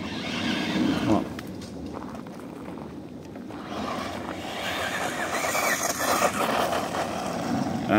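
Electric motor and drivetrain of a small RC car running at full throttle on a 3S battery, its whine rising and falling as it speeds up and slows, over a steady rushing noise.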